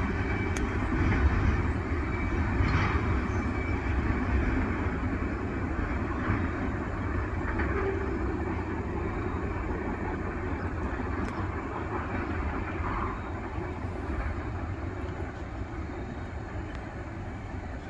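Freight train rolling past, a steady rumble of wheels on rail that slowly fades.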